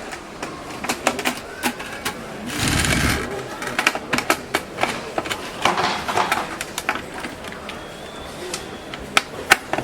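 Smart-lock parts clicking and knocking as they are handled and fitted on the door, with a short buzzing burst about three seconds in.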